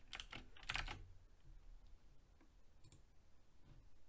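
A few quick keystrokes on a computer keyboard in the first second, then two faint clicks around three seconds in.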